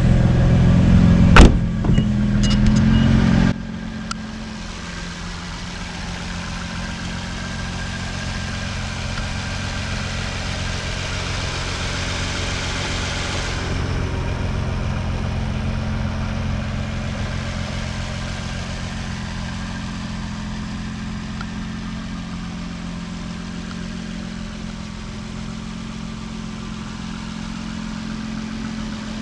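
Nissan GT-R's twin-turbo V6 running at a steady idle. It is louder and fuller for the first three and a half seconds, with one sharp knock about a second and a half in, then drops abruptly to a quieter, even idle.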